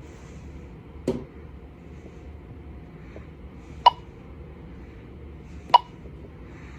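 Three short sharp clicks from presses on an alarm-system keypad: a duller tap about a second in, then two sharper clicks, each with a brief ring, about two seconds apart.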